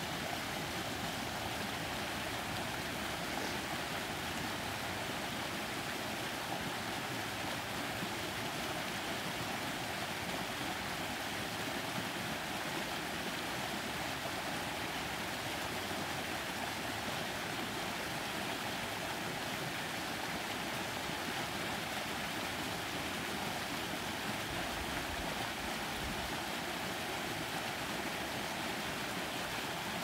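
Small stream at a lake outlet cascading over rocks, a steady rushing and splashing of water.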